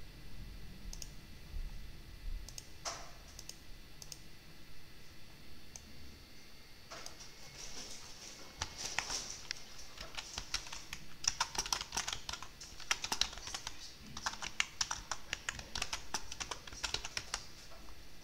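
Typing on a computer keyboard: a few separate key clicks at first, then fast, continuous typing from about seven seconds in.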